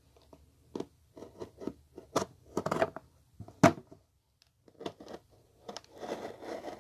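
Hands turning and scratching at a cardboard parcel wrapped in packing tape: a run of irregular scrapes and scratches, the loudest about three and a half seconds in.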